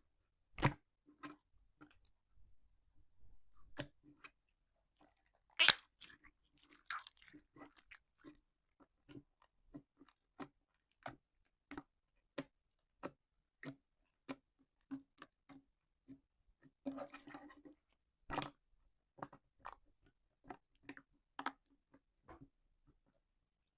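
Slime being squeezed and pressed by hand, giving a string of short sharp pops and clicks about two a second, with a few louder pops and brief crackly stretches.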